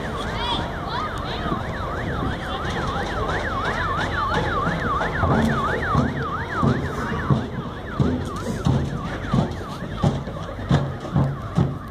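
Emergency vehicle siren on a fast yelp, sweeping up and down about three times a second, fading away about seven seconds in. After that, regular low thumps follow, about two a second.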